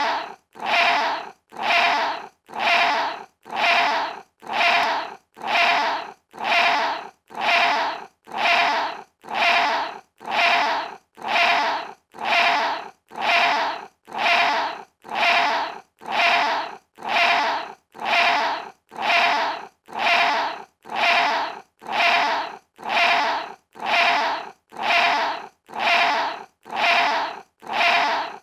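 Small cat's short meow, the same call repeated over and over at an even pace, about every three-quarters of a second.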